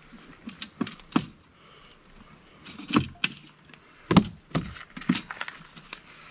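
Folding camp cot's metal frame being snapped into place: about seven sharp clicks and knocks, the loudest about three and four seconds in, with lighter clicks just after.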